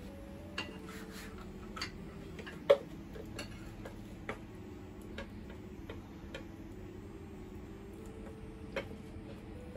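Sparse light clicks and taps of eating and cooking utensils: a spoon on a plate and chopsticks against a frying pan. The sharpest click comes about three seconds in.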